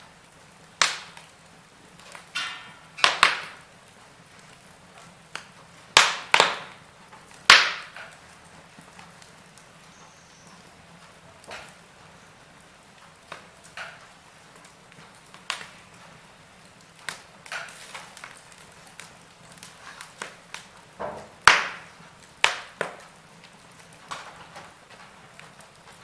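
Wood fire burning in a fireplace: irregular sharp crackles and pops over a soft hiss, with a few louder snaps scattered through.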